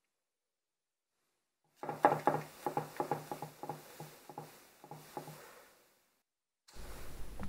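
Spoon tapping and scraping while thick chocolate muffin batter is spooned into paper liners in a muffin tin: a run of quick soft taps, about three a second, starting about two seconds in and fading out. A low rumbling noise starts near the end.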